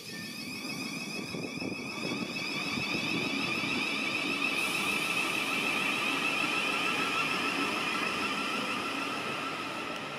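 Thameslink Class 700 electric train moving along the platform. Its traction motors give a steady whine of several tones over wheel-on-rail noise. The sound builds over the first few seconds and eases slightly near the end.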